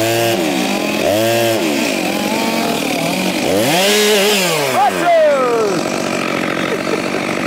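Two-stroke chainsaw revving up and down several times, its pitch rising and falling in swells, with one longer rise and fall about four seconds in.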